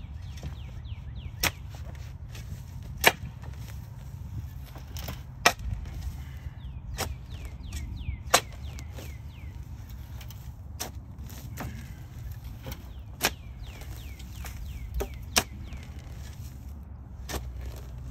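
A long-handled steel shovel digging into the soil of a flower bed, its blade striking the ground with sharp clicks every one to three seconds, some much louder than others.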